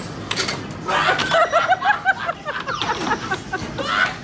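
A man laughing hard in a quick run of short bursts, over sharp clacks of an air hockey puck and mallets hitting the table and rails.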